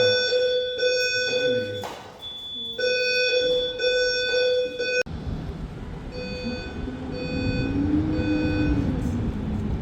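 Building fire alarm sounding: a loud, buzzy horn tone in two long blasts with a short gap between them. After an abrupt cut about five seconds in, it goes on as short, quicker beeps, about one and a half a second, over a low rumble.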